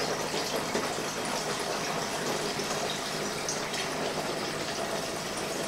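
Nocino, a homemade walnut liqueur, pouring steadily from a large glass jar through a filter, a continuous splashing trickle of liquid.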